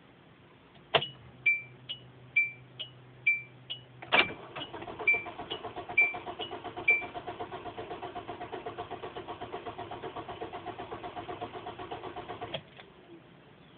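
A car's starter cranking the engine over for about eight seconds without it catching, then stopping suddenly: a no-start. Before and during the start of the cranking, a dashboard warning chime repeats about twice a second, and a click sounds as the key is turned about a second in.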